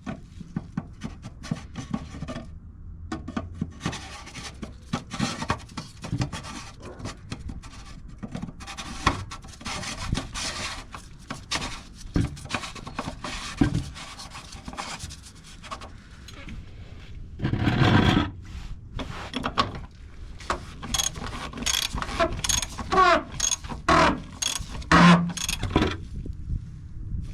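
Fuel filter assembly being worked back into the fuel pump of a Jeep Gladiator EcoDiesel by hand: irregular rubbing, scraping and clicking as the part is turned and seated. There is a louder scrape about two-thirds of the way in and short squeaks near the end.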